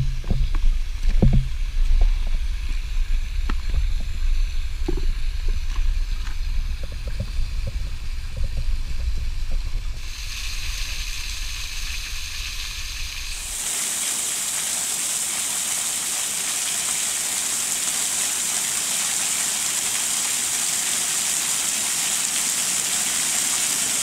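Footsteps knocking on wet creek-bed rocks over a low rumble of noise from a GoPro in its waterproof case. About fourteen seconds in this gives way to the steady splashing of a small waterfall, thin streams of water falling from a rock ledge onto the stone below.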